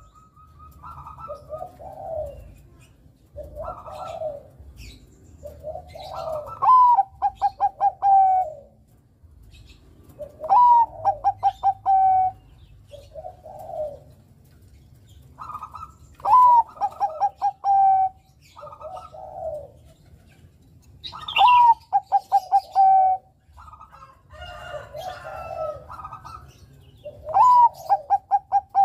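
Zebra dove (Bangkok-type perkutut) singing five phrases about five seconds apart. Each phrase is a quick run of clipped notes that ends in a long, held coo. Softer, lower coos come between the phrases.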